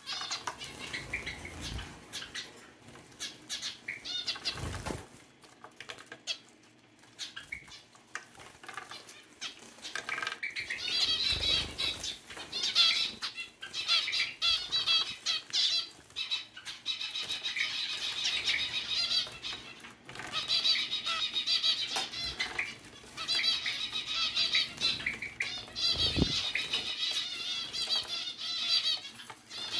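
Zebra finches bathing in a small pet water fountain: wings fluttering and splashing in the water, with a few dull thumps. From about ten seconds in, near-continuous bursts of high, nasal zebra finch calls and chatter.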